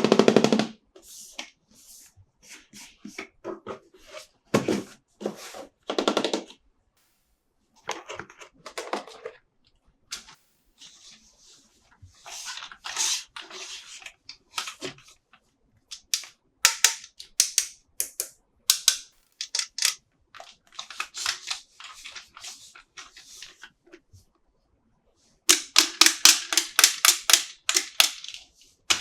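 Toy packaging being handled and opened: crinkling plastic and cardboard, tearing and sharp clicks in irregular bursts, ending in a quick run of about four clicks a second.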